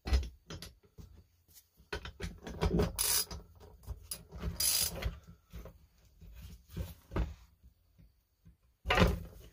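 Half-inch ratchet and socket on the flywheel nut of a Husqvarna 240 chainsaw: irregular bursts of ratchet clicking and metal clinks and knocks as the nut is worked loose while the flywheel is held.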